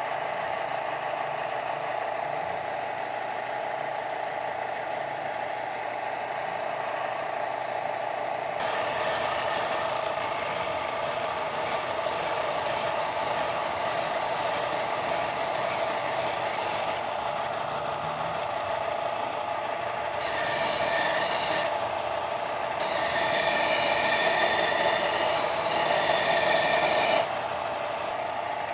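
A hickory axe handle being worn down: a rough, hissing scrape of wood being abraded over the steady drone of a small running machine. The scraping starts about a third of the way in, breaks off and resumes a few times, and is loudest near the end.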